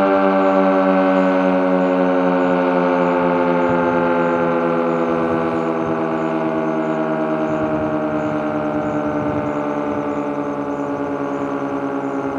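Village outdoor warning siren sounding one long tone that slowly falls in pitch and fades a little as it winds down.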